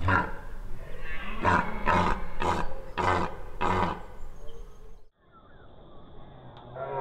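Red deer stag roaring in the rut: a roar, then a run of five short, grunting roars about half a second apart. A second long roar starts near the end.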